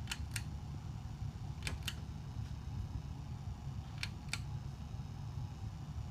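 Three pairs of sharp clicks, the two clicks in each pair about a third of a second apart, from a CEC ceiling fan's switch being worked, over a low steady hum.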